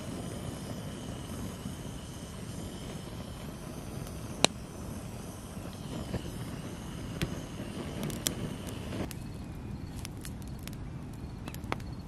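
Hand-held gas torch on a small gas canister hissing steadily as it lights a pile of dry kindling, with a few sharp snaps from the twigs catching. About nine seconds in the hiss stops and quicker crackling pops of the burning wood follow.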